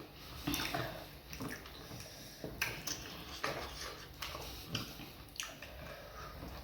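Close-up eating sounds of fufu with vegetable soup: irregular wet smacks, squelches and chewing noises, a few every second.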